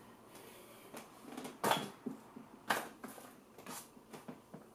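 A few short, uneven knocks and rustles of handling, the two loudest about a second apart in the middle.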